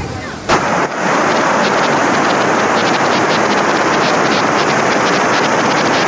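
Floodwater from a breached catchment pond rushing in a torrent close to the microphone, a loud steady roar that starts suddenly about a second in. A sharp knock comes just before it.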